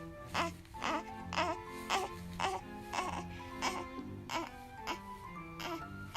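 A week-old newborn baby crying, under background music with a steady beat.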